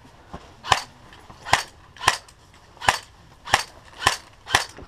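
Airsoft gun firing single shots, seven sharp cracks spaced roughly half a second to three quarters of a second apart.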